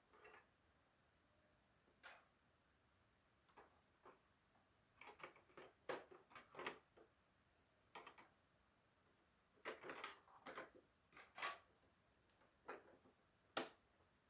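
Scattered light clicks and knocks at irregular intervals, some in quick clusters, typical of small parts being handled during repair work.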